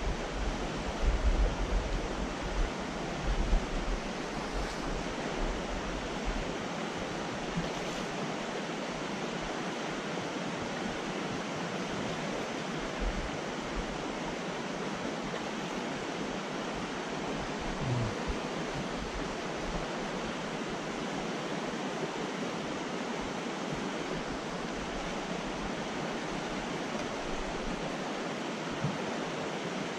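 A fast mountain trout creek rushing over a riffle: a steady, even rush of water, with a few low thumps in the first few seconds.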